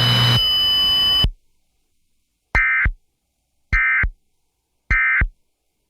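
A steady hum and hiss with a high tone, cut off about a second in, then three short identical data bursts about a second apart: the Emergency Alert System end-of-message tones, the warbling digital code that closes the alert.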